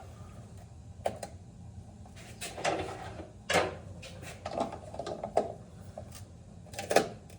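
Handling noises from working on a water filter system's housing: about six scattered knocks and clunks with rubbing and scraping between them.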